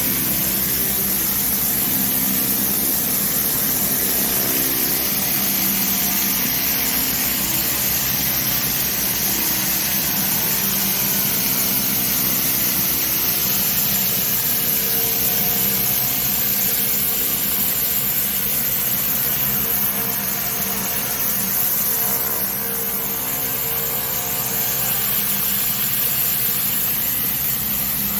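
Petrol-engine pressure washer running steadily, its engine drone under the constant hiss of the water jet.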